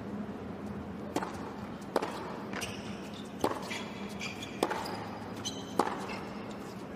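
A tennis ball being hit back and forth in a doubles rally on a hard court: five sharp strikes of ball on racket and court, about a second apart, with short high squeaks between them over a steady arena hum.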